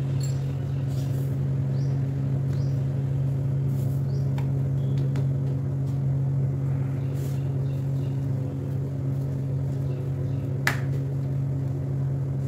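A steady low electrical hum, with faint soft handling noises of dough being folded and pressed on a stone rolling board, and one sharp tap near the end.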